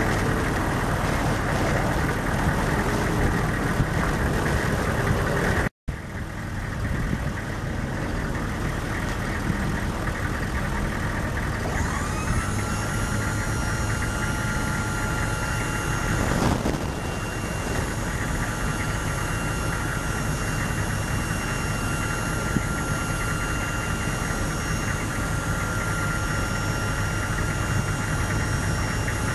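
The 1998 GMC Sierra 3500HD's 6.5-litre V8 diesel idling steadily. About halfway through, a whine comes in, rises and then holds a steady pitch over the engine. The sound drops out briefly about six seconds in.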